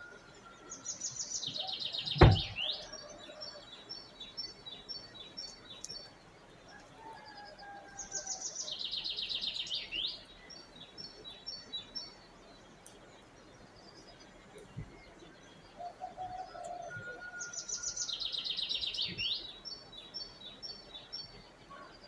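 A songbird singing the same short song three times, about nine seconds apart: a fast high trill ending in a quick upswept note, followed by a string of short, clipped high notes, with softer calls from other birds lower down. A single sharp knock about two seconds in is the loudest sound.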